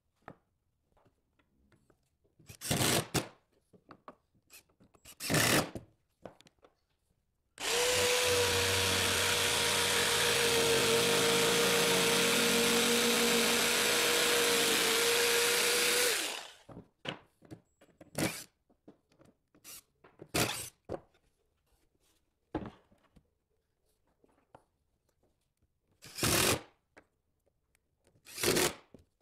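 A jigsaw cutting through 3/4-inch birch plywood for about eight seconds at a steady pitch. Before and after it, a cordless drill-driver whirs in short half-second bursts as it drives screws.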